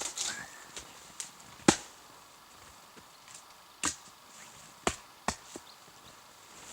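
Dry wood being chopped: five sharp, separate strikes at uneven intervals, the loudest about a second and a half in.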